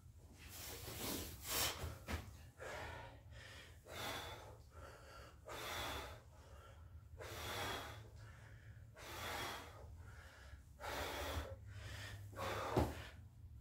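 A man breathing hard from the exertion of burpees, with a forceful, gasping breath about every one and a half to two seconds. Near the end there is a single sharp knock.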